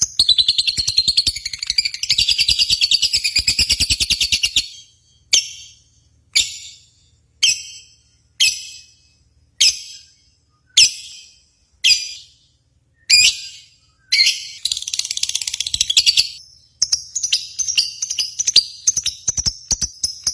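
Lovebird calling: long runs of a rapid, high chattering trill, broken in the middle by single sharp chirps about once a second, before the fast trill returns.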